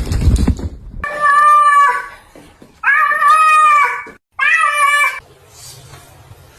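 Domestic cat meowing three times in long, drawn-out meows, the middle one the longest. A low rumble comes before them, in the first second.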